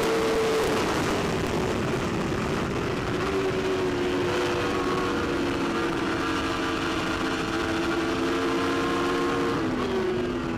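BMW S1000RR superbike's inline-four engine running hard at high revs, heard from on the bike over steady wind rush. The engine note sags slowly, then drops sharply about ten seconds in.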